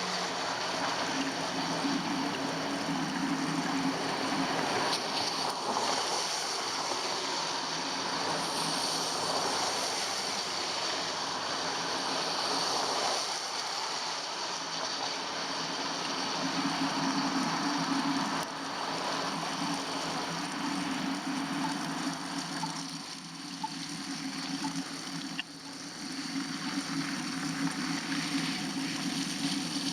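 Steady rushing noise while cycling: bicycle tyres on a wet, slushy road and wind on the microphone, a little quieter in the last third.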